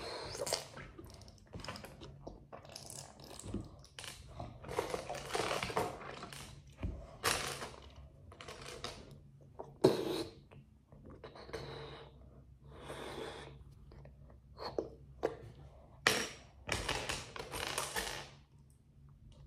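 Loose plastic building bricks clattering and clicking in short irregular bursts as a hand rummages through a pile on a table, with a sharper knock about halfway through.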